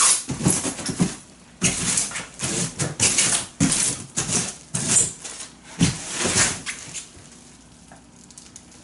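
Plastic stretch wrap around a cardboard wardrobe box rustling and crinkling in irregular bursts as hands press and rub along it. The sound dies down about seven seconds in.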